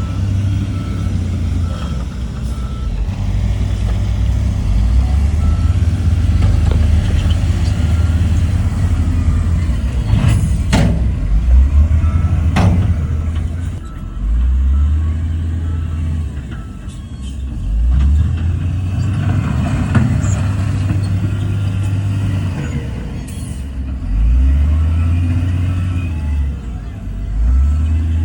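Heavy diesel earthmoving machinery working: a bulldozer and dump trucks with engines running under load, surging up and down several times. A reversing alarm beeps repeatedly through the first several seconds. Two sharp metallic knocks come around the middle.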